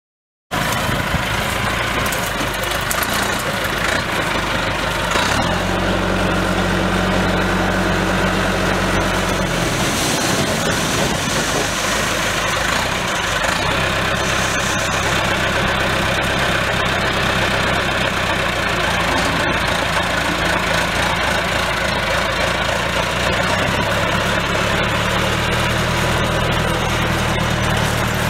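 Diesel tractor engines running with a tractor-drawn corn picker working, a steady dense mechanical din; the engine note shifts a couple of times.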